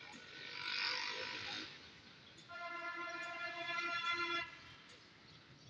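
A short hiss, then a steady train horn blast lasting about two seconds that cuts off abruptly: a diesel locomotive's air horn as the train departs.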